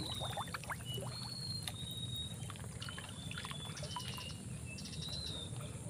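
Soft sloshing, trickling and small splashes of water stirred by hands and body working a fishing line while wading chest-deep. Short, faint, high whistles sound now and then in the background.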